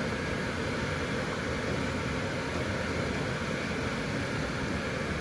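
Steady, even rushing noise with no distinct tones or strokes, of the kind a fan or blower makes.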